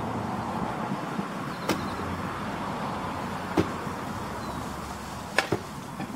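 A steady engine-like hum, with a sharp click about every two seconds; the low rumble drops away near the end.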